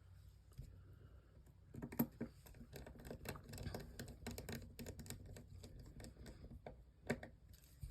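Light clicks and taps of small hard phone parts and tools being handled while a smartphone is worked on, in an irregular run from about two seconds in, with a couple of sharper clicks near the start and near the end.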